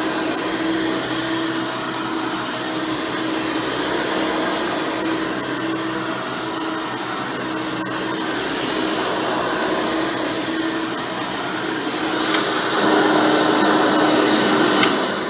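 Hoover Elite Supreme upright vacuum, with a 20-blade fan motor and a single-row brush roll, running steadily with a constant motor whine. It gets louder for the last couple of seconds, then starts to wind down right at the end.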